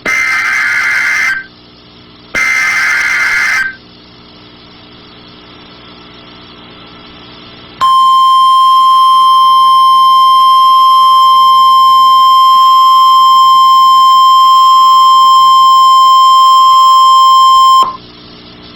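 NOAA Weather Radio emergency alert. The last two bursts of the SAME digital alert header, buzzy data squeals about a second and a half each, are followed by a few seconds of radio hiss. Then the 1050 Hz warning alarm tone sounds, a single steady loud tone held for about ten seconds, announcing a severe thunderstorm warning.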